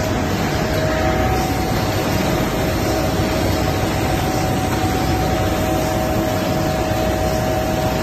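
Stop-cylinder screen printing line with its auto powder applicator and powder dryer running: a steady, fan-like rush with a constant whine.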